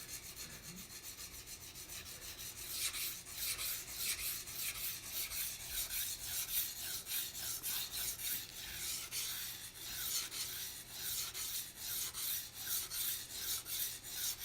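High-carbon steel knife blade scraping back and forth across a coarse 200-grit water stone in quick, repeated strokes, about two a second. The stone is cutting the metal rapidly.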